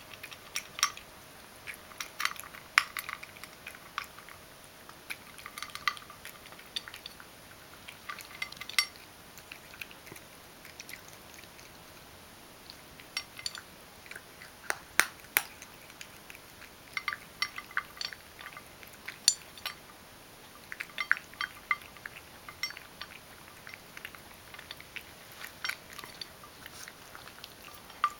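Ragdoll cat crunching dry kibble from a stainless steel bowl: clusters of sharp crunches and clinks of kibble and teeth against the metal, with a pause of a few seconds near the middle.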